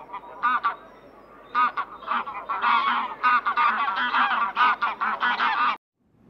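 A flock of domestic fowl calling: many short, pitched calls overlapping, a few scattered at first, then a dense chorus from about a second and a half in, which cuts off abruptly near the end.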